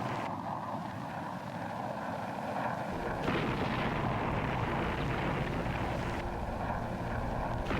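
Aircraft engine noise: a steady rushing roar that grows fuller in the low end about three seconds in.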